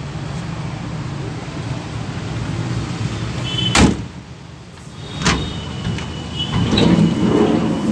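Maruti Omni van's sliding side door slammed shut about four seconds in, one sharp loud bang, followed by a weaker knock about a second and a half later.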